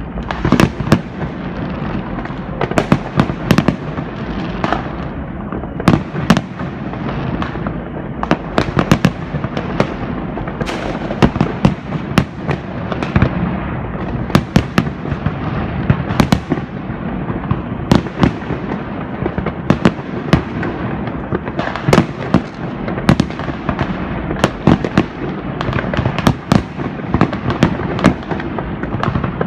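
New Year's Eve fireworks going off all around: continual bangs and crackling, several sharp cracks a second over a steady dense rumble of distant explosions.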